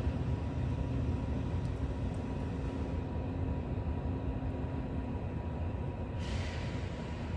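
Wood stove fire burning hard with its auxiliary air inlet open to heat the firebox quickly, giving a steady low rumble of draft. A brief hiss comes about six seconds in.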